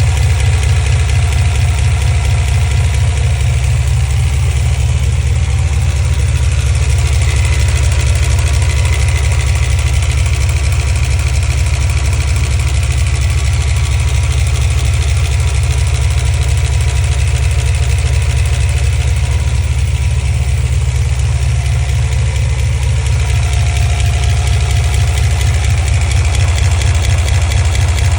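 Chrysler 360 LA small-block V8 idling steadily, with a noise the owner asks may be lifter noise.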